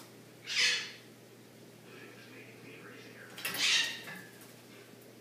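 African grey parrot bathing in a water dish, splashing and beating its wings in two short bursts, about a second in and again about three and a half seconds in.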